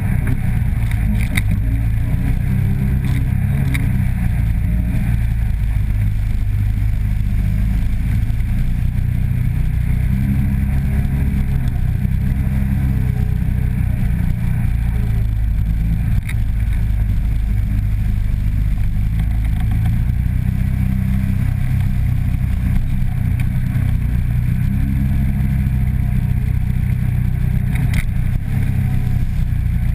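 Polaris 800 twin-cylinder ATV engine running at steady part throttle on a trail ride, its pitch rising and falling a little with the throttle. Occasional light clatter comes from the machine over the bumps.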